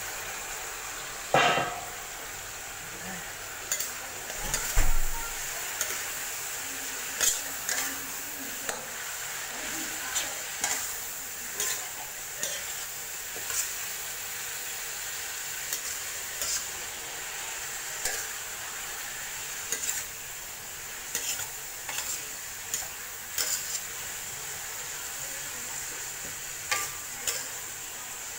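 Raw chicken pieces sizzling in hot oil in a pan, stirred and turned with a metal spatula that scrapes and knocks against the pan about once a second. The loudest knocks come near the start.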